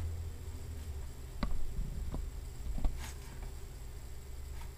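A handful of separate computer mouse clicks, spaced irregularly, over a low steady hum.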